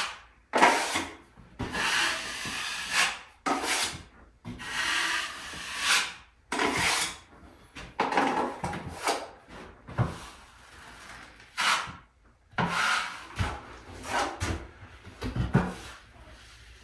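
Wide drywall knife scraping joint compound on and off a mud pan and spreading it across drywall: a run of repeated scraping strokes, each under a second. It is the thin, feathered final coat of a level-four drywall finish.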